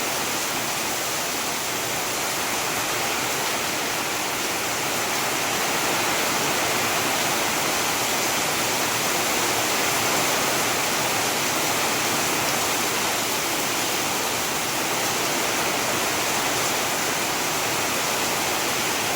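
Steady heavy rain: a dense, even hiss with no single drops standing out.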